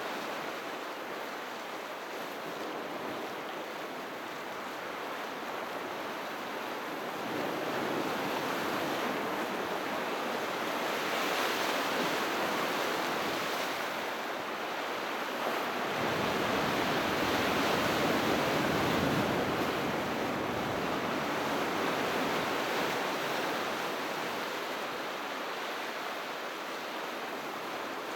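Sea waves surging and washing in a steady rush of surf, swelling louder twice, the second time the fullest and deepest.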